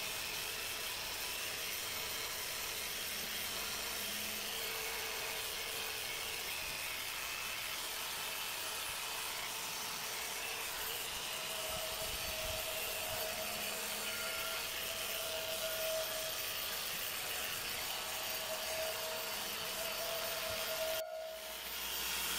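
Electric random-orbital tool running steadily, its pad rubbing across the face of an aluminum alloy wheel, with a faint wavering whine; it drops away briefly near the end.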